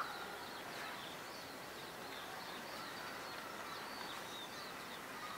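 Steady outdoor background noise with small birds chirping faintly and repeatedly throughout.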